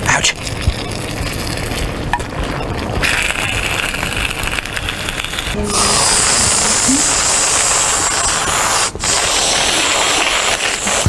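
Aerosol can of whipped cream hissing as it sprays into a mouth. A hiss starts about three seconds in and grows much louder about six seconds in, with a brief break near nine seconds.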